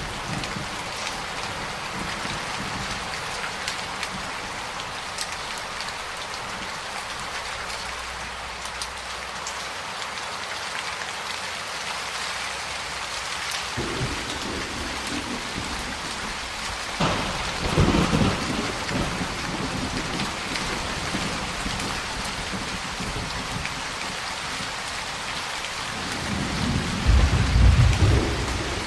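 Steady heavy rain with rolls of thunder. A low rumble builds about halfway through, a sharper, louder peal follows a few seconds later, and the deepest, loudest rumble comes near the end.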